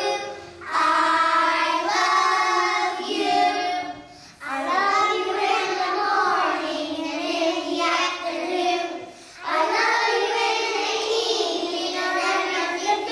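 A group of preschool-age children singing a song together. They sing line by line, with brief pauses between phrases about half a second, four seconds and nine seconds in.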